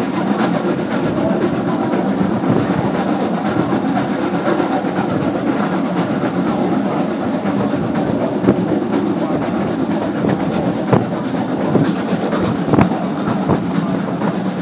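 Passenger car riding on jointed track behind a steam locomotive: a steady rumble with the clickety-clack of wheels over rail joints, and a few louder knocks in the second half.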